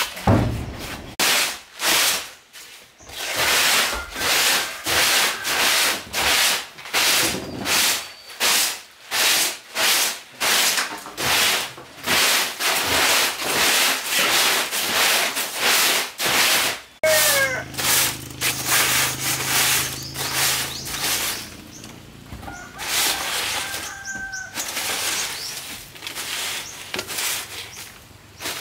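Rhythmic back-and-forth scraping or rubbing strokes of a hand tool working a hard surface, about one and a half strokes a second, stopping about seventeen seconds in. After that, a few short bird calls.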